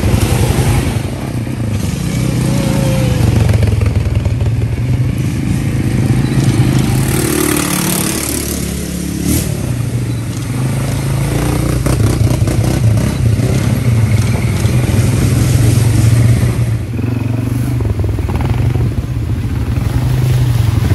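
ATV engine running while riding, its level rising and falling a little.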